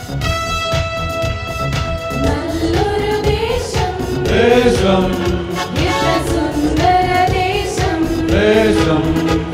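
Instrumental accompaniment with steady held notes, then a group of men start singing a Malayalam hymn together about two seconds in, with the accompaniment continuing under their voices.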